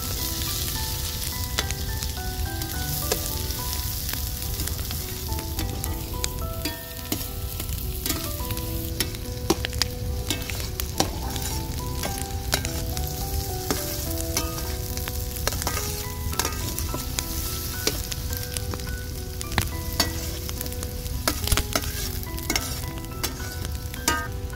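Sliced onions sizzling as they fry in hot oil in a large metal pan over a wood fire, with the clicks of a metal spatula stirring against the pan.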